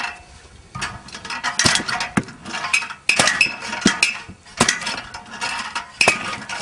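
Homemade spring-loaded lever log splitter: its steel blade chopping down into a log again and again, each stroke a sharp knock of wood cracking with a metallic clank, about one a second and unevenly spaced.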